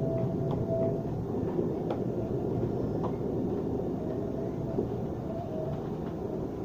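Inside a Nottingham Express Transit Alstom Citadis 302 tram in motion: a steady rumble of wheels on the rails, with a few faint clicks and short whining tones that come and go.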